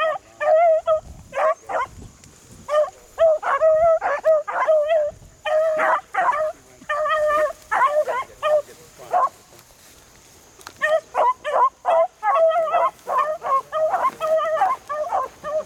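Beagles baying, a run of quick, repeated pitched yelps as the hounds trail a rabbit's scent. The calls break off for about a second partway through, then start again.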